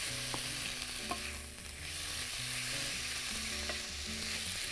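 Chicken strips sizzling in hot oil in a nonstick frying pan while being stirred with a wooden spatula, which knocks against the pan a few times. They are being sautéed before broth is added.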